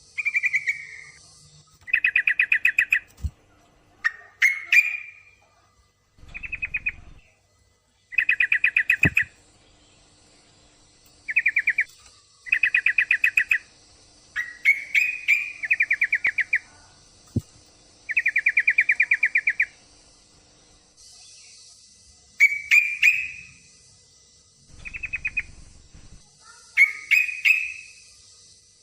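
Yellow-vented bulbul (trucukan) calling in short phrases of rapid chattering notes, each about a second long and repeated every second or two. This is a lure recording that the uploader presents as a female in breeding condition calling a male. A steady high hiss runs underneath.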